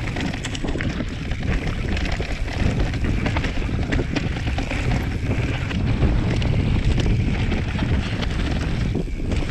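Wind rushing over the microphone of a mountain bike's camera on a rough descent, with frequent short rattles and knocks from the tyres and bike over stones.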